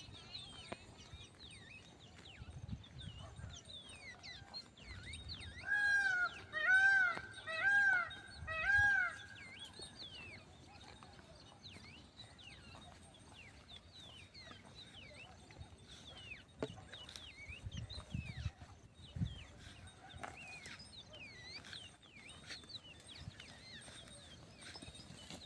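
Small birds chirping continuously in many short, quick notes, with four loud arching calls about a second apart from a larger animal partway through.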